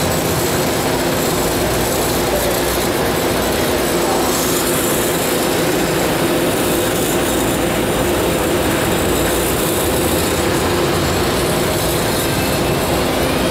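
BART train standing at an underground station platform with its doors open, its onboard equipment giving a steady hum over a wash of noise that echoes in the subway station.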